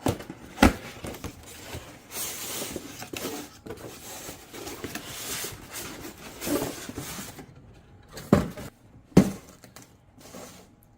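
Box contents being handled during an unboxing: paper and plastic packaging rustling, with a few sharp knocks and clacks as things are moved or set down, the loudest two about eight and nine seconds in.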